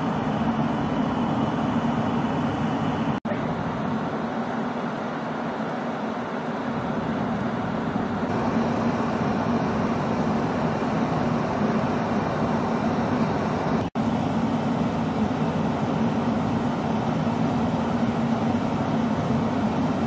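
Steady engine noise from vehicles and machines working in deep snow, with two very short dropouts where the sound changes from one source to the next.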